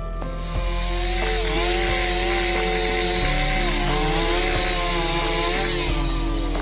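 Chainsaw cutting into a large jackfruit trunk: the cutting noise comes in about half a second in, runs steadily and eases off near the end.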